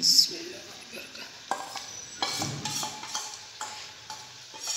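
A spiced yogurt mixture hits hot masala frying in ghee in a nonstick wok and sizzles loudly at first. A silicone spatula then keeps stirring and scraping through the sizzling mixture in separate strokes.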